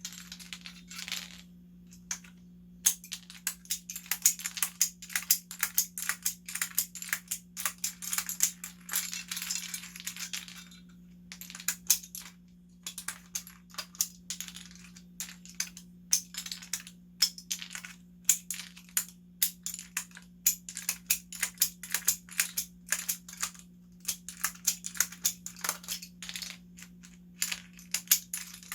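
Cherry-profile keycaps being pulled off a mechanical keyboard in quick succession: a rapid, irregular run of sharp plastic clicks and clatters, with a denser rattling stretch partway through. A steady low hum runs underneath.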